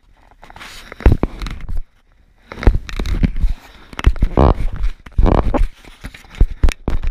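Fingers handling a GoPro HERO4 Silver camera and its housing right at the microphone: irregular rubbing, scraping and sharp knocks, with two short squeaks about halfway through.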